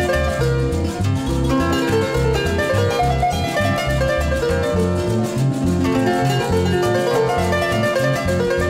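Instrumental passage of Paraguayan folk music: a harp playing quick runs of plucked notes over guitar accompaniment and a steady, regular bass pattern, with no singing.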